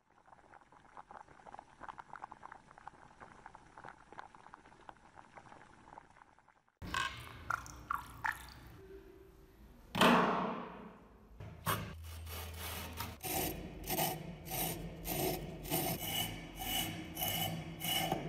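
Faint fizzing crackle of bubbles rising off a rusty cast-iron meat grinder soaking in a rust-removal bath. From about seven seconds in come knocks of the cast-iron grinder being handled, a loud falling swish at about ten seconds, then gloved hands scraping and twisting its rusted, threaded front ring in repeated gritty strokes about twice a second.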